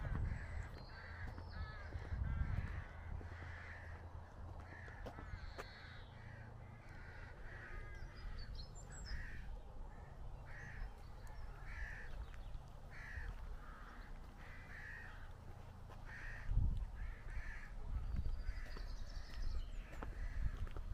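Rooks cawing at a rookery, many birds calling over and over in quick succession, with a few low rumbles on the microphone near the start and late on.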